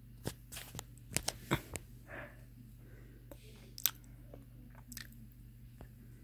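A string of sharp clicks and crackles close to the microphone, bunched in the first two seconds, with one loud click a little before four seconds and a few fainter ones after, over a steady low hum.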